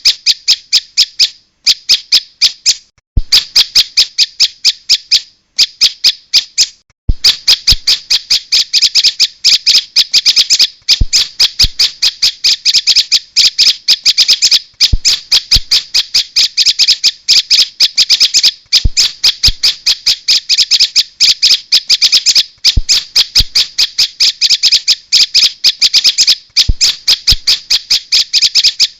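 Prinia (prenjak) lure call: a loud, fast run of sharp repeated chip notes, several a second. It has a few short breaks in the first seven seconds, then runs on without a pause.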